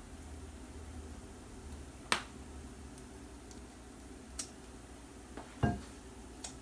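Kitchen utensil tapping and clicking: four scattered sharp clicks over a low steady hum, the loudest near the end.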